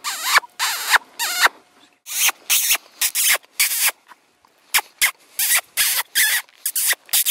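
Footsteps crunching through ice-crusted pasture grass, a quick run of short crisp crunches about two or three a second, with a brief pause near the middle.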